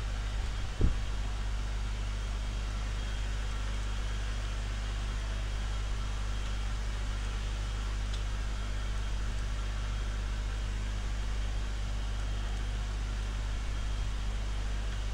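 Steady low hum with an even hiss, the background noise of the room and its equipment, with one short thump about a second in.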